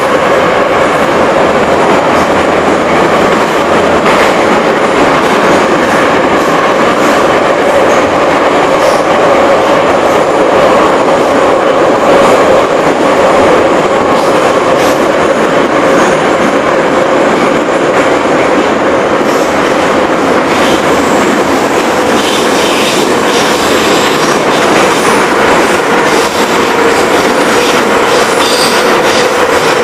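Soviet-built 81-717/714 metro train heard from inside a car while running at speed through a tunnel: a loud, steady rumble of wheels on rails with a steady whine. Sharp clicks and rattles grow more frequent in the second half.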